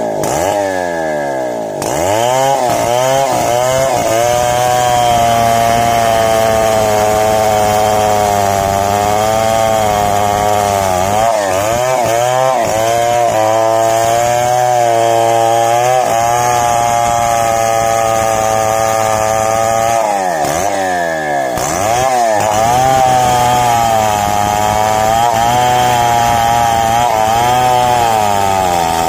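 Two-stroke chainsaw cutting through the trunk of a large mahogany tree at full throttle, its engine note dipping several times as it loads up in the cut and then climbing back.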